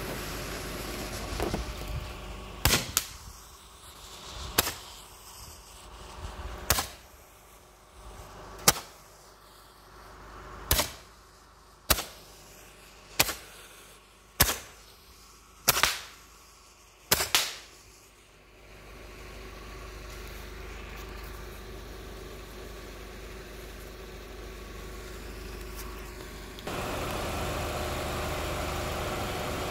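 A Roman candle firing: about a dozen sharp pops, one to two seconds apart, over some fifteen seconds. After it burns out, a car engine idles with a steady hum that grows louder near the end.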